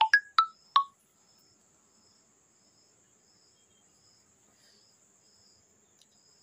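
Four sharp, short chirps in the first second, each dropping in pitch, then a cricket chirping quietly in the background, a soft high pulse repeating steadily over a faint high hum.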